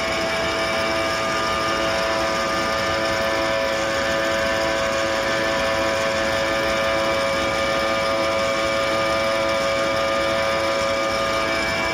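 Gearbox running with a steady whine of several fixed tones over a mechanical rumble, the abnormal noise of a faulty gearbox.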